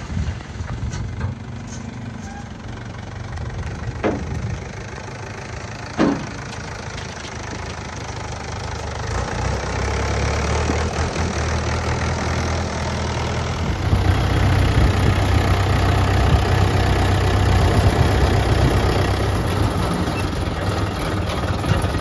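Swaraj 843 XM tractor's diesel engine running, with two sharp knocks about four and six seconds in while the trolley is tipped to unload soil. About halfway through the engine is louder and steady as the tractor drives on the road.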